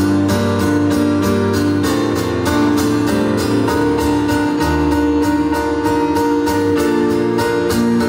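Live band music: an acoustic guitar strummed in an even rhythm under held keyboard chords, without singing.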